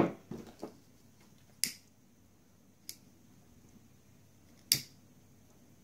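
A knock at the very start, then a few sharp, separate clicks one to three seconds apart, from small hand tools at the work: tweezers and an orange disposable lighter, the later clicks fitting the lighter's flint wheel being struck.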